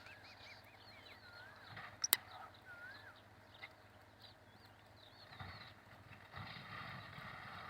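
Faint, wavy whistled bird notes in the background, with a single sharp click about two seconds in. A low rumble with a hiss comes in near the end.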